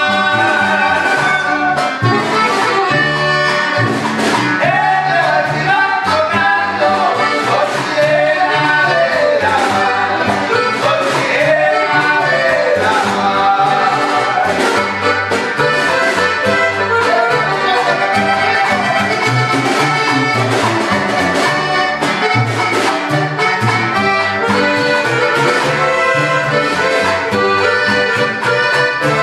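Live Tierra Caliente-style band playing: a button accordion carries the melody over upright bass, strummed guitar and a snare drum, with a sung vocal line through roughly the first half.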